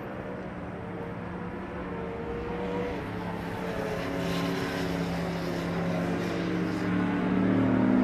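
A vehicle engine running at a steady pitch, its tone easing slightly downward near the end.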